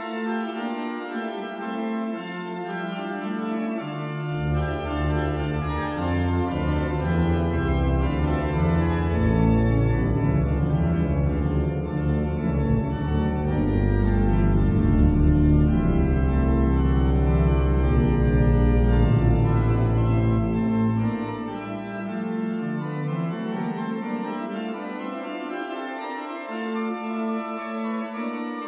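Church organ playing sustained full chords. Deep pedal bass notes come in about four seconds in, build to the loudest passage, and drop away around twenty-one seconds, leaving the higher chords.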